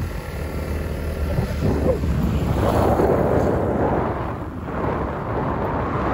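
Wind buffeting the microphone over the low, steady rumble of a moving vehicle, swelling and easing in gusts.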